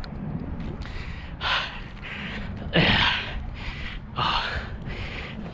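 A man breathing hard and gasping from exertion while carrying a heavy rock, with three loud, breathy exhalations about a second or so apart.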